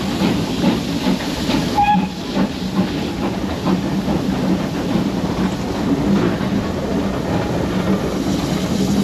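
Steam locomotive running with its train, a steady rush of exhaust and steam hiss over a low rumble. A short pitched note sounds briefly about two seconds in.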